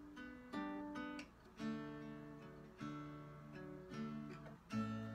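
Acoustic guitar with a capo playing chords, a new chord struck about once a second and left to ring.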